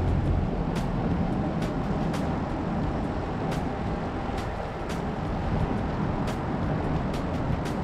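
Strong wind buffeting the microphone in a steady rumble, with a few faint clicks scattered through it.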